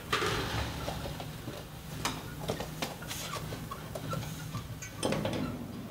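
Scattered light clicks and knocks, with a short scrape at the start and another about five seconds in, from a metal service mast being handled and lowered through roof flashing.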